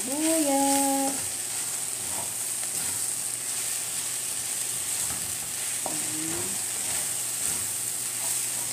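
Beef slices, garlic and onions sizzling steadily in hot oil in a frying pan, stirred and pushed around with a wooden spatula.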